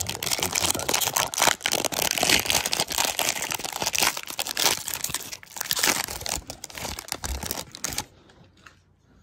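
Foil wrapper of a Panini baseball card pack crinkling and tearing as it is ripped open by hand, a dense run of crackles that stops abruptly about eight seconds in.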